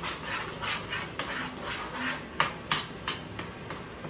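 Boiled potatoes being mashed with a utensil in a metal saucepan. The utensil makes repeated squishing scrapes, roughly two to three a second, with a few sharp knocks against the pan.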